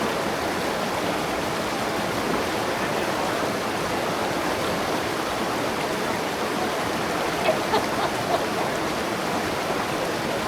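River water rushing steadily over rocks, with a few brief faint taps about three quarters of the way through.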